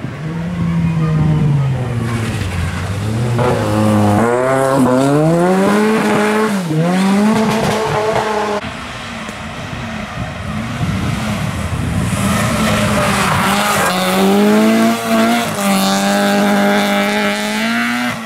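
Ford Sierra rally car at full throttle, its engine revs climbing and dropping through several gear changes before fading about eight seconds in. A second rally car follows, its engine held at high revs and loudest near the end.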